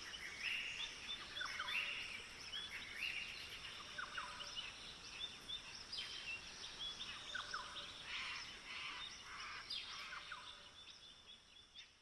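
Many small birds chirping and calling over a steady high hiss, with short rising and falling notes overlapping throughout, fading out near the end.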